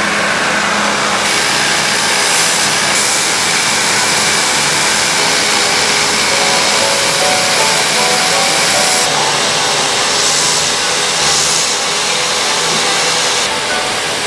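Towel-making machinery running: a loud, steady mechanical whir and hiss that shifts in tone a few times.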